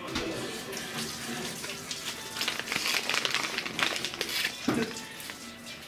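Cat chewing treats eaten from a person's palm: a dense run of small, crisp crackles and clicks, busiest around the middle.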